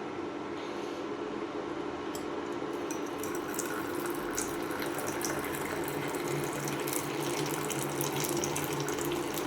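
Hot ginger tea being poured into a cup: a steady splashing pour that grows louder and busier from about three seconds in, over a steady background hum.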